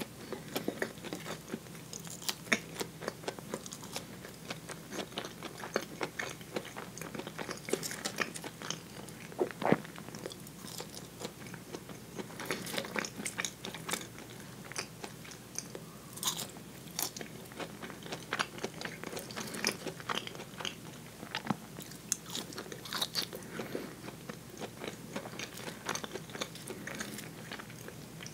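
Close-miked chewing of soft potato wedges dipped in ketchup, with many short, irregular wet mouth clicks.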